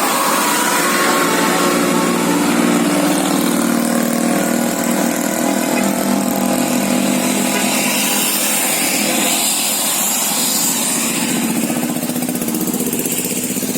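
A bus engine running steadily, a continuous hum that eases slightly near the end.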